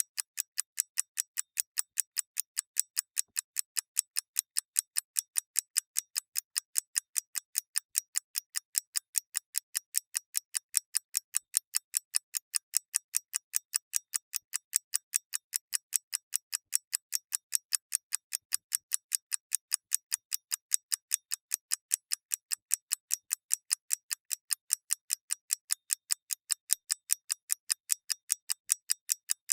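Mechanical clock ticking in a fast, perfectly even rhythm of sharp, high, light ticks, a few each second.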